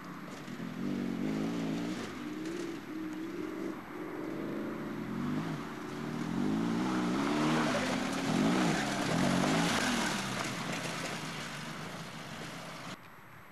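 Off-road competition vehicle's engine revving up and down repeatedly as it is driven hard over the course, growing louder to a peak about eight seconds in and then fading. The sound cuts off suddenly near the end.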